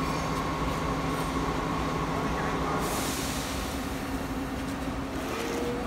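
Steady mechanical hum and rumble with a few held tones, and a rushing hiss for about a second starting three seconds in.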